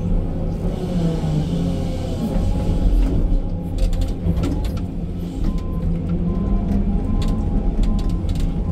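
Excavator's diesel engine and hydraulics running steadily, heard inside the cab, as a bucket of earth is swung and dumped; clatters and knocks of falling soil and stones start a little after three seconds in. From about halfway a short beep repeats a bit faster than once a second.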